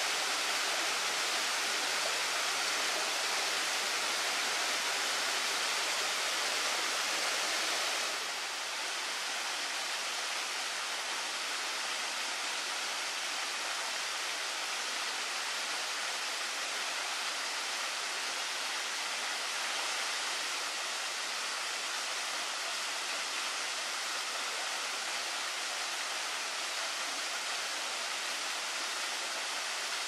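A small waterfall of thin strands over a rock face, splashing steadily into a pool. About eight seconds in, the rushing becomes slightly quieter and less bright.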